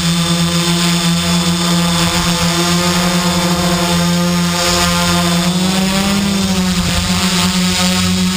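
Quadcopter's electric motors and propellers running in flight, a steady buzzing hum heard close from the GoPro mounted on the craft. The pitch rises briefly about six seconds in, then settles.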